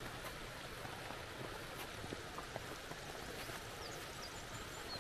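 Steady rushing of a small hill burn running over rocks, with a few faint high chirps in the second half.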